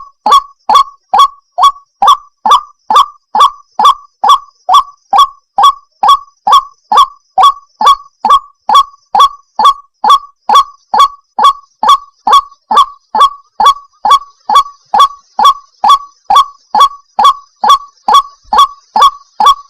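Female white-breasted waterhen call: a short, falling note repeated very evenly about twice a second, played as a lure call for trapping the birds.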